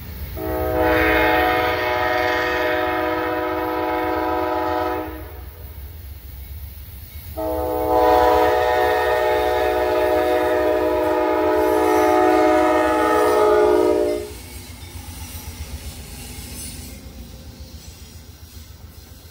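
Locomotive air horn sounding two long blasts, the second longer. The horn is a chord of several steady notes, over the low rumble and rail noise of a passing train.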